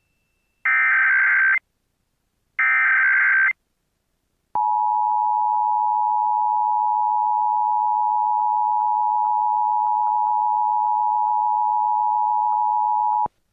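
Emergency Alert System tones. First come two short buzzy SAME header data bursts, about a second each and a second apart. Then, after a brief pause, the steady two-tone EAS attention signal sounds for about nine seconds and cuts off sharply near the end.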